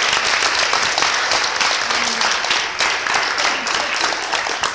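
A large audience applauding: dense, sustained clapping that thins slightly near the end, with a few voices faintly heard under it.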